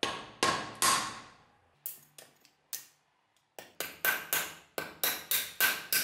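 Hammer blows driving a metal tool into the old handle scales on a rusty butcher knife's tang to break them off. About fifteen sharp metallic knocks, each with a short ring, come in uneven bursts that quicken in the second half.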